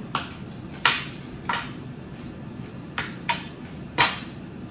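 Snow crab legs being worked over at the table: a series of six sharp cracks and clicks of shell and cutlery, irregularly spaced, the loudest about a second in and again about four seconds in.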